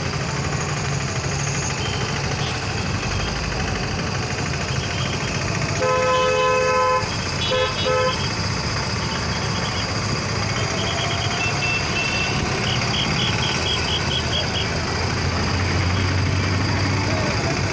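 Steady vehicle engine and road noise in slow traffic. A vehicle horn sounds once for about a second near the middle of the clip, followed by two short toots, and later a run of faint high beeps.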